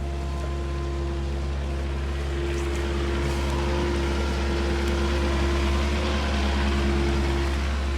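Caterpillar excavator's diesel engine running steadily while digging, a constant low hum with a steady whine above it, growing a little louder about two to three seconds in.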